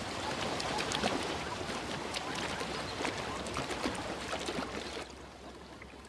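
Zebra hooves splashing and sloshing through shallow, muddy water: a busy, irregular patter of small splashes that drops away about five seconds in.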